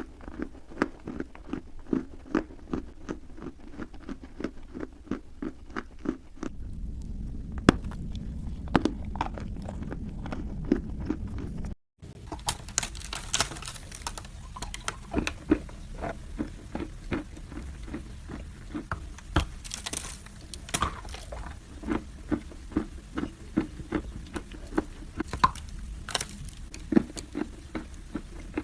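Dry clay being bitten and chewed close to the microphone: a continuous run of crisp crunching crackles, with a momentary dropout about twelve seconds in.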